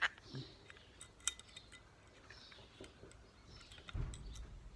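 Light metallic clicks and clinks of a CO2 BB pistol's small parts being handled during reassembly, as the spring goes back in, with a dull knock near the end.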